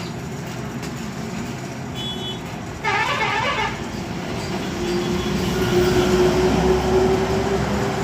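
Motor vehicle traffic noise with engines running, and a brief louder sound about three seconds in.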